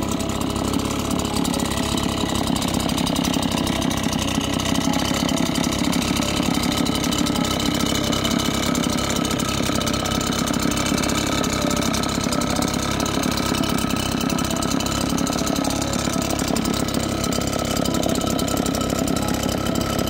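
Zenoah EBZ8550 backpack blower's 75.6 cc two-stroke engine idling steadily.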